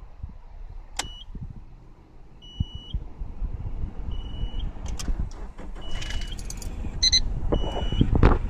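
Low rumble of a car engine under a series of five short, high electronic beeps, each ending in a small upward step in pitch, with a brief chime just before the last one. Clicks and knocks of handling grow louder near the end.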